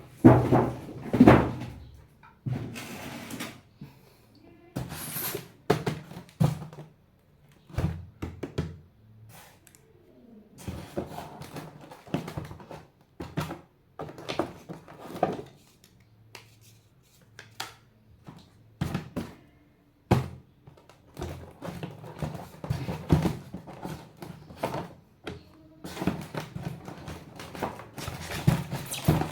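Irregular knocks, thunks and lighter clicks of remote-control toys being handled. The loudest knocks come in the first couple of seconds and again near the end.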